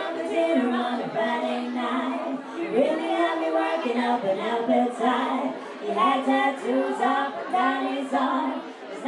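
Female vocal trio singing a cappella into microphones, with long held notes.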